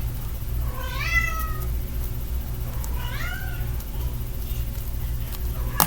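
A domestic cat meowing: two short calls that rise in pitch, about a second and three seconds in, with another starting at the very end, over a steady low hum.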